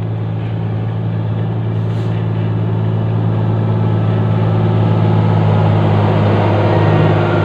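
Caterpillar motor grader's diesel engine running at a steady pitch, growing louder as the machine drives up close.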